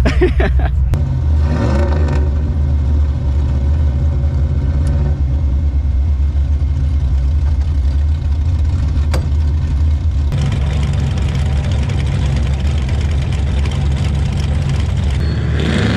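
A vehicle engine running with a low, steady rumble, briefly rising in pitch about two seconds in.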